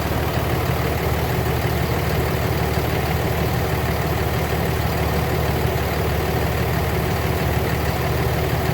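Car engine idling steadily with the air-conditioning compressor clutch engaged.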